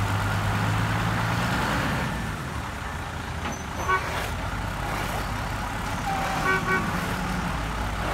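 Truck engine running, louder for the first two seconds then easing off. Brief horn toots cut in about four seconds in and again twice around six and a half seconds.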